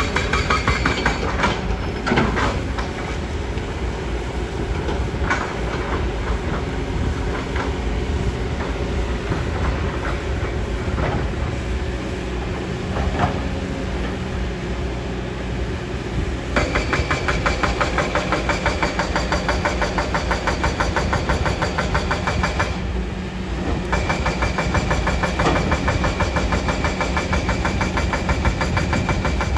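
Kobelco hydraulic excavator's diesel engine running with a fast rhythmic clatter and a few scattered metallic knocks. About halfway through the engine note gets louder and busier, as under heavier hydraulic load, drops briefly and picks up again.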